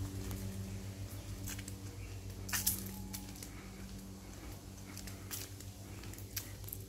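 Footsteps on a paved path, short sharp steps about once every half second to second, the strongest about two and a half seconds in, over a steady low hum.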